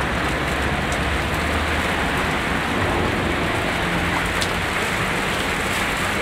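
Heavy downpour: a steady, loud hiss of rain, with the low hum of car engines as cars wade slowly through a flooded street.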